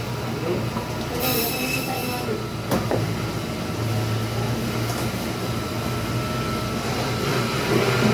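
Steady low mechanical rumble with a brief high squeal a little over a second in and a single sharp click near the three-second mark.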